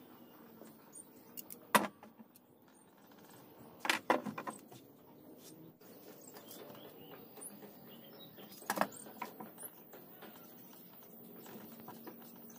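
A few sharp clicks and knocks of small hardware and tools being handled and set down on a plywood panel on a wooden workbench: one about two seconds in, a short cluster about four seconds in, and another near nine seconds.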